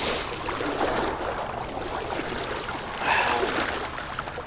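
Steady rushing wind noise on the microphone, with a faint voice briefly about three seconds in.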